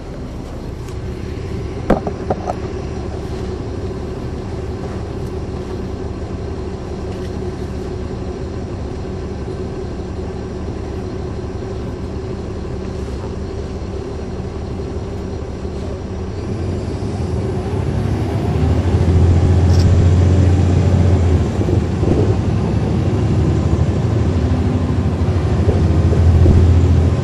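Caterpillar C13 ACERT diesel engine of a 2009 NABI 40-SFW transit bus, heard from the rear seat with its engine cooling fans running. It hums steadily, then grows louder and heavier from about seventeen seconds in, with a strong low drone around twenty seconds and again near the end. A sharp knock about two seconds in.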